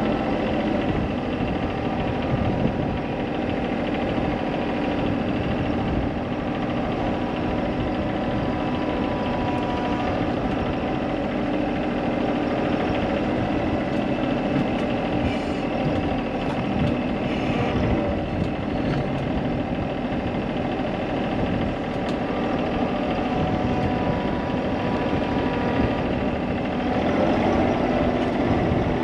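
An engine running steadily at a constant speed, with a few faint clicks around the middle.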